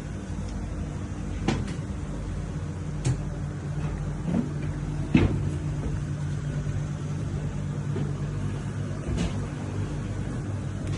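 Steady low hum of running machinery in a ship's engine room, broken by about five sharp knocks, the loudest about five seconds in.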